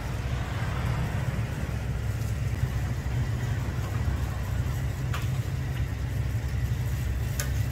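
Hotteok frying in a shallow griddle of oil, a steady sizzle over a louder, steady low rumble. Two sharp clicks come near the end.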